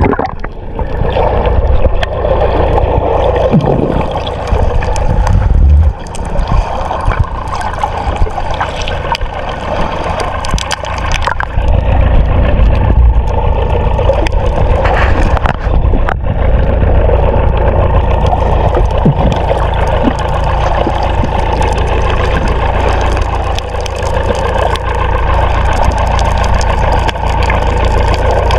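A fishing boat's engine running steadily with a low rumble.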